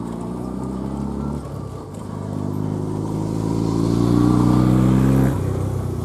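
An engine running steadily nearby. It grows louder from about two seconds in and drops back abruptly near the end.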